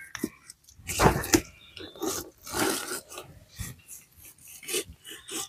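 Rustling and rubbing as garden plants are handled by hand, in irregular bursts with a louder one about a second in.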